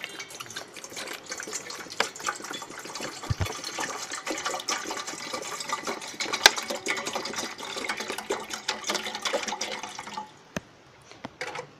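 Water poured from a plastic bottle into an empty stainless steel pot, splashing steadily on the metal and the rising water. The pouring stops near the end, followed by a couple of light clicks.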